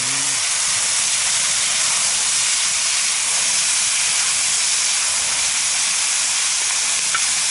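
Meat, onions and freshly added honey mushrooms sizzling steadily in oil in a sadj pan over a campfire.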